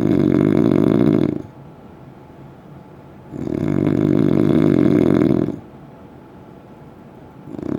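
Heavy snoring: loud, rattling snores about two seconds long coming roughly every four seconds. One snore ends about a second and a half in, the next runs from about three to five and a half seconds, and another begins near the end.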